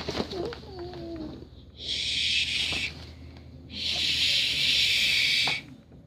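Cat hissing twice, a hiss of about a second and then a longer one of nearly two seconds, after a short falling vocal sound near the start.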